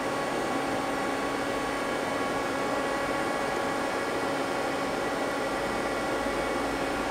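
Steady hum of running machine-shop equipment: an even hiss carrying several steady tones.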